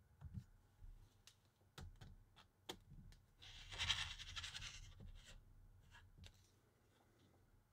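A rotary cutter rolling along a metal ruler and slicing a thin strip of material against a cutting mat: one scratchy pass of about a second and a half, a little over three seconds in. A few faint sharp clicks and taps come before it.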